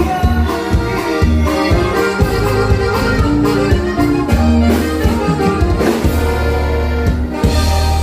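Norteño band playing dance music, with a steady bass line and a regular drum beat under held melody notes.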